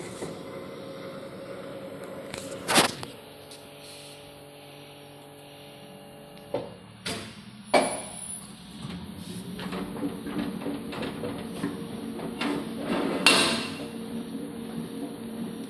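Paint shaker machine running with a steady motor hum as it shakes a 20-kilo pail of paint. Three loud knocks come about 3, 8 and 13 seconds in, and a fast rattle sets in about nine seconds in.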